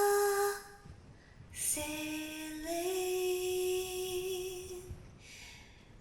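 A woman singing a slow, wordless-sounding lullaby in invented words, unaccompanied. One long held note ends just under a second in; after a short pause a second long note begins, steps up slightly and fades out near the end.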